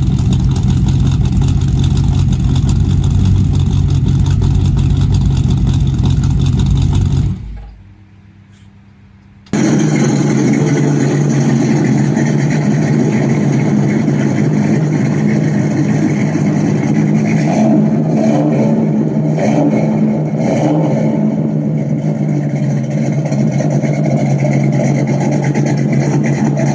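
Exhaust of a 1957 Chevy's 283 small-block V8, bored .030 over, running steadily through 2.5-inch straight pipes and aftermarket performance mufflers. The sound cuts out for about two seconds and comes back with a different tone, as the comparison switches muffler setups.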